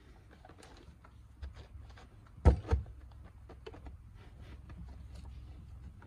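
Plastic side mirror assembly handled and turned over on a towel, with two dull knocks about two and a half seconds in, then soft rubbing and light clicks as a microfiber cloth wipes the housing.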